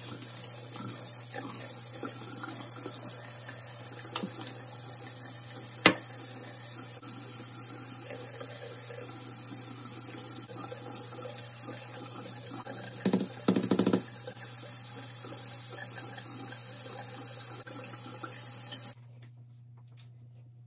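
Bathroom tap running steadily into a sink, with a sharp knock about six seconds in and a short clatter a little past halfway. The water cuts off suddenly near the end, leaving a low steady hum.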